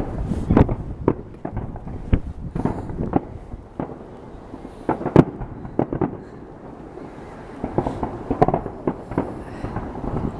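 Fireworks going off, a string of irregular booms and sharp bangs, some single and some in quick clusters, with a busier spell of bangs and crackle about eight seconds in.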